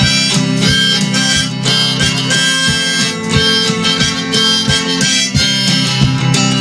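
Instrumental break in a folk song: a harmonica plays a melody of long held notes over a steadily strummed acoustic guitar.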